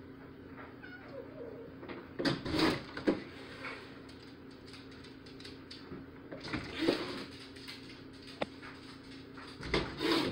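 A house cat meowing in three loud bouts while it jumps against a glass storm door at a mail carrier outside, with knocks on the door. A short click comes about eight and a half seconds in.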